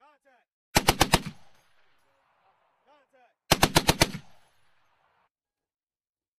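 M2 .50-caliber heavy machine gun firing two short bursts of about five or six rounds each, roughly three seconds apart, at about ten rounds a second, each burst echoing as it dies away.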